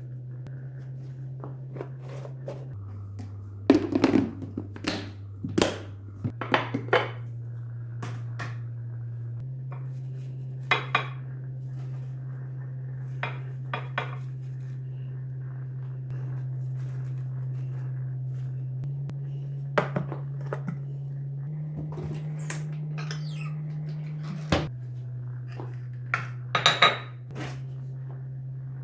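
Kitchen dishes and utensils clinking and knocking in scattered bursts, over a low steady hum that shifts in pitch now and then.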